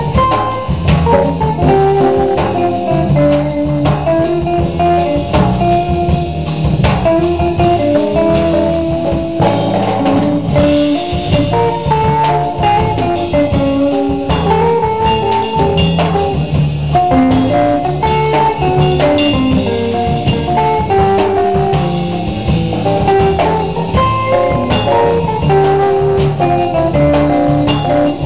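Live small band playing a jazz samba: drum kit, acoustic and electric guitars and electric bass, with a single melody line moving over a steady bass pattern and drums.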